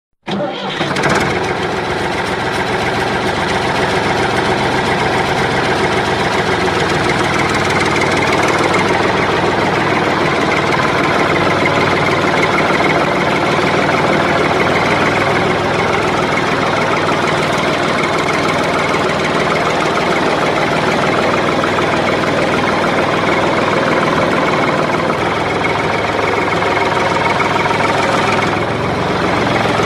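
An engine idling steadily, cutting in abruptly at the very start.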